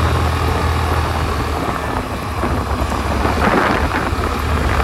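Wind buffeting a helmet-mounted microphone on a moving scooter: a loud, steady low rumble with a hiss over it, swelling a little about three and a half seconds in. Under it runs the Suzuki Avenis scooter's small single-cylinder engine.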